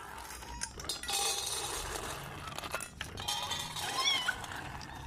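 A puppy's short high whimper about four seconds in, over rustling noise and a few light clicks.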